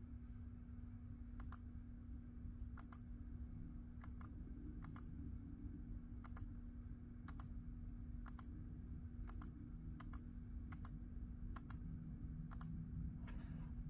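Keys of a Razer BlackWidow V4 Pro 75% mechanical keyboard pressed one at a time, about a dozen strokes spaced roughly a second apart. Each stroke is a short double click. A steady low hum runs underneath.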